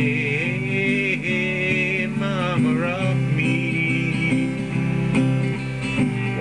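Instrumental break in a country-bluegrass song: acoustic guitar playing under a bending lead melody, with no singing.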